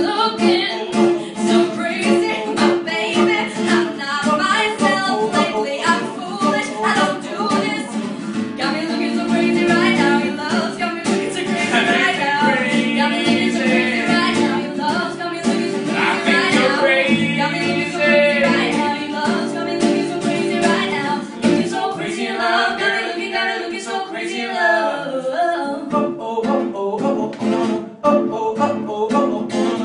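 A woman singing a pop song over a strummed acoustic guitar.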